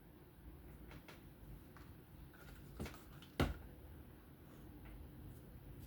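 Quiet room tone with two light clicks about half a second apart a little past the middle, the second the sharper, from small parts or tools being handled on the work surface.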